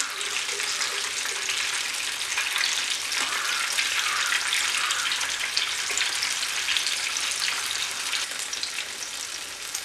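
Breadcrumb-coated ripe plantain slices deep-frying in hot oil, the oil sizzling and crackling steadily around them while a fork turns them over.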